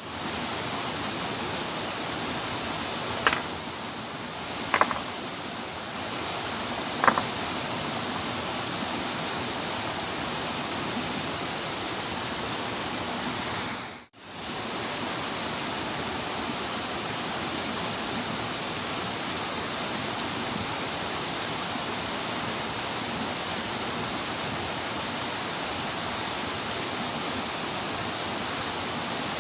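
Rapids rushing steadily close by, an even wash of water noise. Three short, sharp sounds come in the first seven seconds, and the sound drops out for a moment about halfway.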